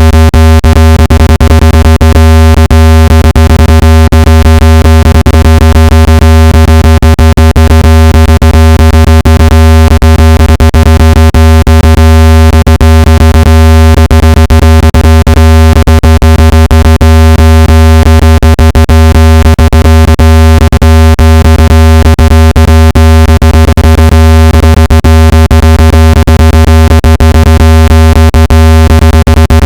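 Speaker water-eject tone: a loud, steady, low-pitched electronic tone with many overtones and a crackly, clicking texture. It is played at full volume so the speaker's vibration pushes water out of the speaker grille.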